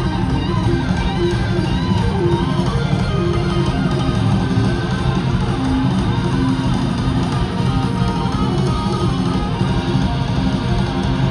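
Live hard-rock band playing an instrumental stretch: electric guitar lead with wavering, bent notes over strummed guitar and a heavy bass.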